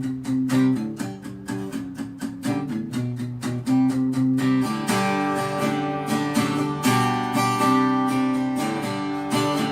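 Background music: acoustic guitar picked in a quick, even rhythm, growing fuller and strummed about halfway through.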